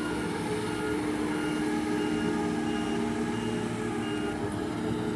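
300-ton boat travelift running, its engine humming steadily while its warning alarm beeps about once every 0.7 seconds, the signal that the lift is moving.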